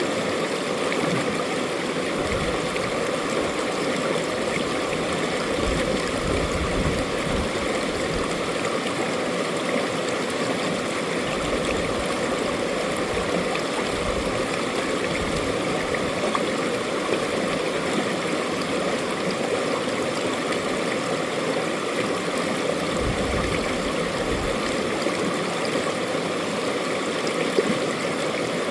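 Mountain stream flowing and gurgling over rocks, a steady rush of water with brief low rumbles now and then.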